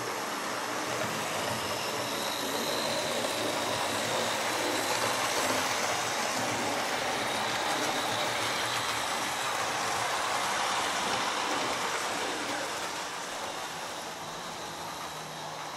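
Model HST (InterCity 125) train running on model railway track: a steady electric motor hum and rolling wheel noise with a faint high whine. It grows louder toward the middle and eases off near the end as the train passes.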